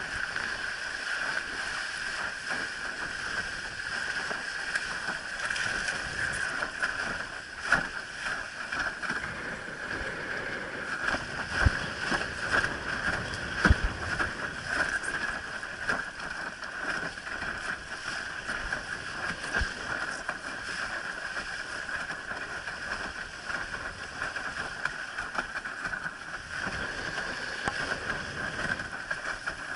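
Water rushing and splashing along a Starboard windsurf board's hull as it planes across the lake, a steady wash with a few sharper slaps about a third of the way through.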